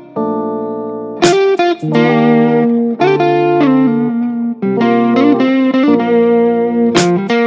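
Background music led by guitar, playing held notes and chords that change every half second or so.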